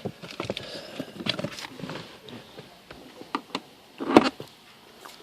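Handling noise: a run of small clicks and rustles, then one sharp knock about four seconds in.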